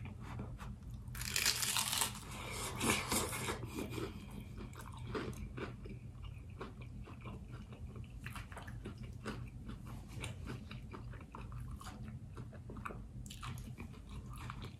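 A bite into a fried chicken pot pie egg roll with a loud crunch of the crisp wrapper about a second in, then steady crunchy chewing full of small crackles and clicks. Another loud crunch comes near the end.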